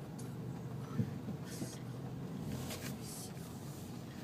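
Steady low rumble of rain and car noise heard inside a car's cabin, with a sharp click about a second in and a few brief hissing swishes.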